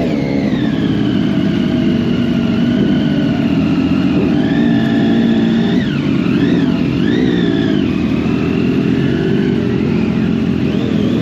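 Several superbike engines idling together in a steady drone, with quick throttle blips whose pitch swoops up and back down a little past the middle and again near the end.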